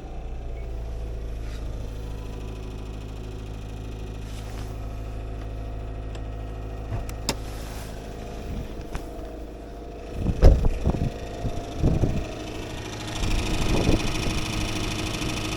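Subaru Legacy B4 (BL5) boxer engine running at idle just after being started, with an abnormal noise that the owner cannot yet explain. A few loud knocks come about ten seconds in, and a harsher, higher rasping noise joins over the engine near the end.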